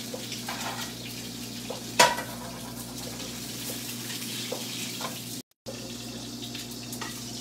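Sesame-crusted tuna loin searing in a smoking-hot pan with a little sunflower oil: a steady frying hiss over a low steady hum. A sharp clank about two seconds in, and the sound cuts out for a moment about five and a half seconds in.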